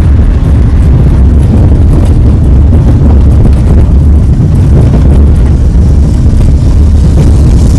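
Car driving along a rough, unpaved dirt road: a loud, steady, low rumble of tyres and engine.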